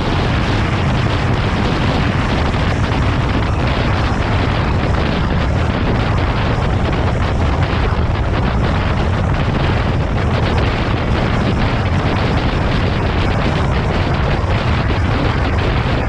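Steady, loud wind buffeting the microphone on a Zero FXE electric motorcycle riding at about 45 mph, a dense rushing noise heaviest in the low end.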